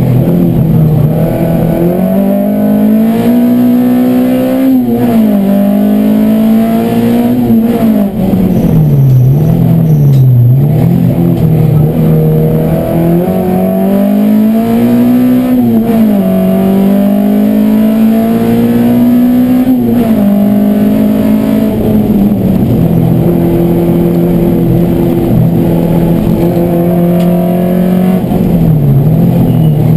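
A race car's engine heard from inside its stripped, roll-caged cabin, driven hard around a circuit: the revs climb and fall again and again, dipping sharply several times as it lifts off and picks up again through the corners, and running steadier on the straights.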